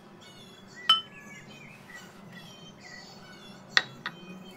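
Glass mixing bowl clinking sharply twice, about three seconds apart, as it is knocked while dough is worked in it; the second clink is followed quickly by a lighter one. Faint high chirping runs underneath.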